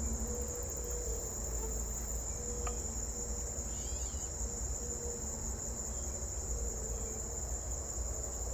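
Steady, high-pitched chorus of crickets and other insects droning without a break, over a low rumble. A brief chirp, likely from a bird, sounds about four seconds in.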